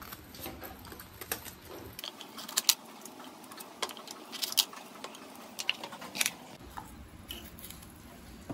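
Light, irregular clicks and taps of a kitchen knife and cut bitter gourd pieces on a plastic cutting board as the gourd is cut up and its seeds scraped out.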